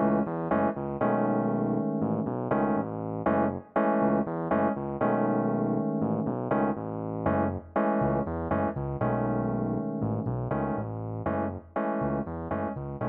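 Background music: an electric piano playing a melody with chords, notes struck in a steady rhythm.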